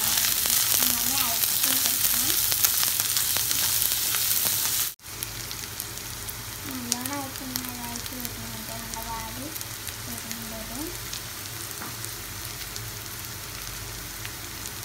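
Sliced shallots, garlic, ginger, green chillies and curry leaves sizzling and crackling in hot coconut oil in a frying pan, stirred at first. About five seconds in the sound cuts out for a moment, then the sizzle carries on quieter.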